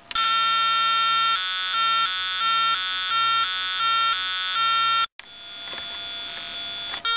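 Electronic siren circuit built on a Radio Shack Science Fair electronic kit, sounding through the kit's small speaker. It gives a loud, buzzy tone that holds steady for about a second and then alternates between two tones a couple of times a second. Just after five seconds it cuts out for a moment, comes back weaker and grows, then jumps back to full strength near the end.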